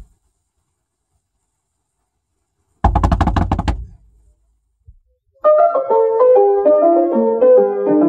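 After nearly three seconds of silence, a quick flurry of knocks on a car's side window lasts about a second. About five and a half seconds in, piano music begins.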